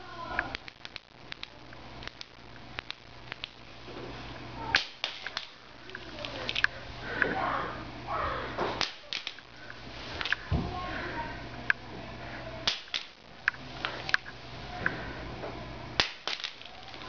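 SureFire G2L flashlight's clicky tailcap switch being pressed over and over: sharp clicks at irregular spacing.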